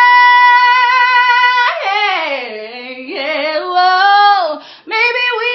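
A woman singing unaccompanied. She holds a long high note with a light vibrato, then about two seconds in breaks into a run of notes that slides down and climbs back up.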